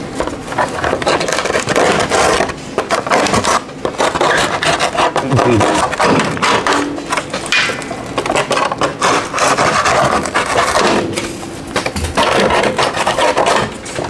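A Thermopan joist liner panel being cut open by hand: a run of noisy cutting strokes, broken by short pauses about four seconds in and again near the end.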